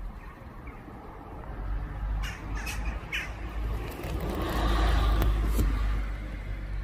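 Three short, harsh bird calls about half a second apart, about two seconds in, then a car driving past, its engine and tyre noise swelling and then fading.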